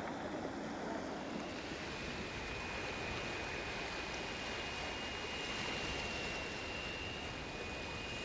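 Sea washing steadily against a shingle beach, with wind. A faint, thin, steady high tone is held from about two seconds in.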